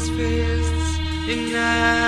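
Instrumental 1970s rock music: sustained chords held over a steady low bass note, with the chord changing a little past halfway.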